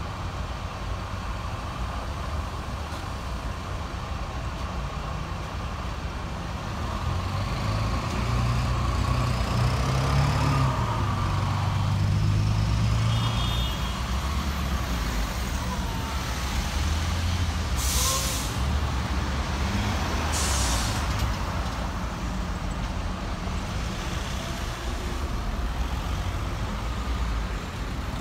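Town-centre traffic with bus engines running as buses move through a junction, the low engine rumble growing louder for several seconds in the middle. Later come two short hisses of bus air brakes a couple of seconds apart.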